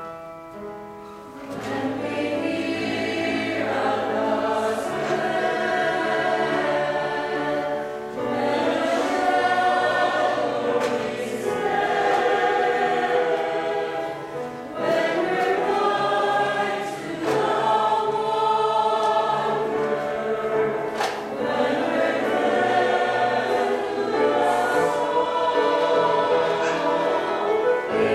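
Mixed church choir of women's and men's voices singing an anthem in parts, coming in after a brief lull about a second and a half in and moving in phrases with short breaths between them.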